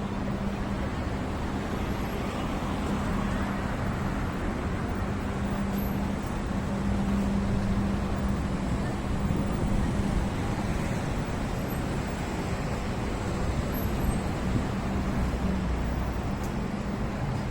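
Road traffic noise: a steady rush of passing vehicles, with a steady low hum underneath.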